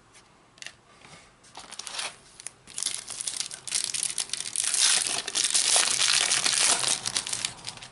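Trading card pack wrapper being torn open and crinkled in the hands. It starts about a second and a half in and is loudest in the second half.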